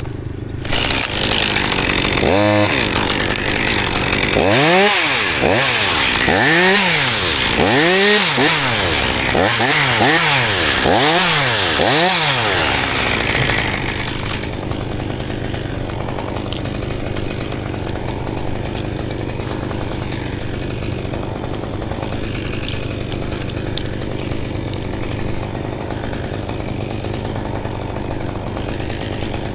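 Chainsaw in a tree: the engine revs up and down about six times in quick succession, then settles back to a steady idle from about halfway through.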